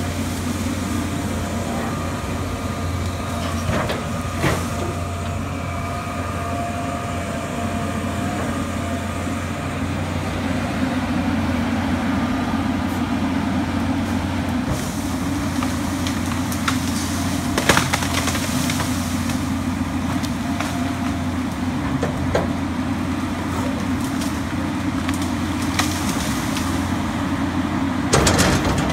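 John Deere tracked excavator's diesel engine running steadily under load as it clears trees, with a high steady whine for several seconds near the start. Several sharp cracks and snaps of branches and trunks breaking cut through it, the loudest about two-thirds of the way in and near the end.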